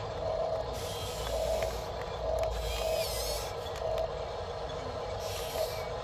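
Small electric gear motors of radio-controlled construction models whining steadily, with a slight pulsing swell, as a tracked RC bulldozer drives forward and an RC excavator moves its arm.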